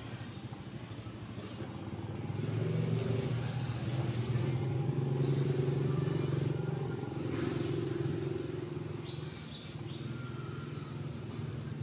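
Motor vehicle engine running as a steady low hum, swelling about two seconds in and easing off near the end.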